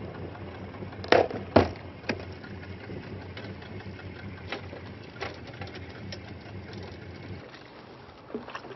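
A boat motor idling with a steady low hum that cuts off about seven seconds in. Two loud knocks come just after the first second, with a few lighter clicks later.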